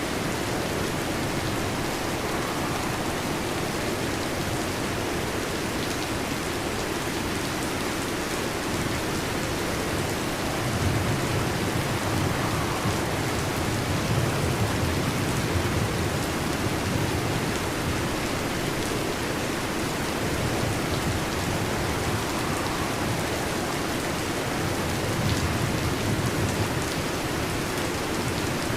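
Heavy rain falling steadily, with low rolling thunder rumbling up about a third of the way in and again near the end.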